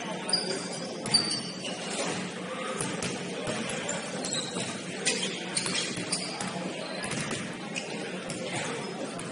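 Basketball game ambience in a gymnasium: a basketball being dribbled on the hardwood court, with a few short sneaker squeaks near the start and indistinct voices echoing in the hall.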